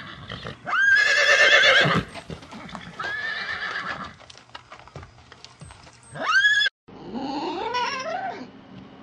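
Horses whinnying: a loud, wavering whinny that rises sharply about a second in, a quieter one around three seconds, and a short rising call just before an abrupt cut. After the cut, several overlapping falling calls follow.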